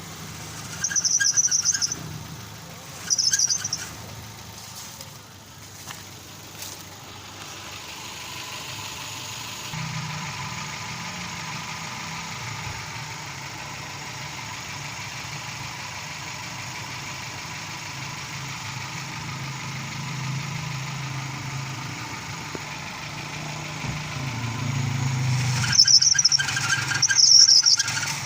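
Car's power steering drive belt squealing in short, high-pitched bursts, twice about a second and three seconds in and twice more near the end, over a steadily running engine. The squeal comes with the power steering worked hard at full lock, the belt slipping under the pump's load.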